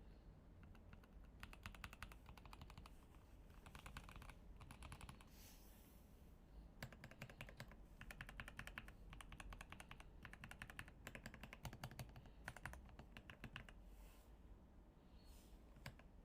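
Typing on a mechanical keyboard fitted with PBT pudding keycaps: faint, quick runs of key clicks in several bursts with short pauses between.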